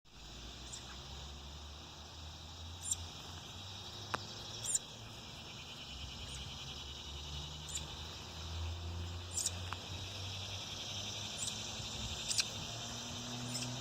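Outdoor ambience of insects trilling steadily, with short, high chirps every second or two and a low rumble underneath.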